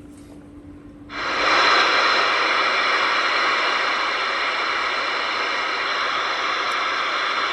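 Steady loud static hiss from the Connex CX-36HPF radio's speaker, coming in suddenly about a second in as the radio is put on the air and receiving with the squelch open. A faint low hum is there before it starts.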